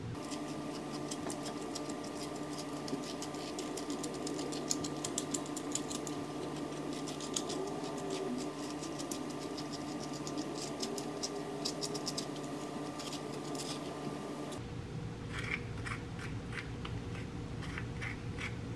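A spoon scraping the seeds and pulp out of a halved yellow melon: many quick, sharp scrapes in runs, with a short break about three-quarters of the way through before the scraping resumes.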